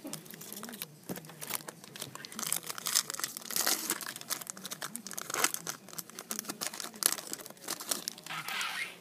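Trading-card pack wrappers crinkling and tearing as the packs are handled and ripped open by hand: a busy run of crackles and rustles that stops sharply near the end.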